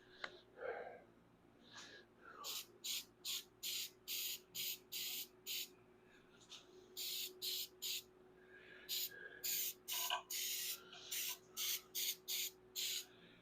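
Aerosol spray can hissing in a quick series of short bursts, dozens of them in two runs with a pause between, as a coating is sprayed onto a rusty car frame.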